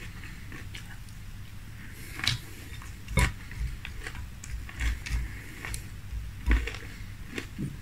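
Close-miked chewing of crunchy frosted corn flakes in milk: irregular crunches and mouth clicks, with a metal spoon clinking and scraping in a glass bowl, the loudest about three and six and a half seconds in.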